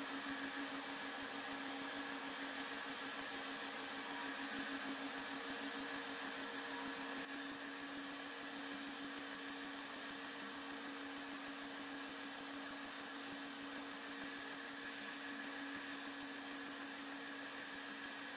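Steady electric motor drone: a constant hum over an airy hiss, unchanging apart from a slight drop in level about seven seconds in.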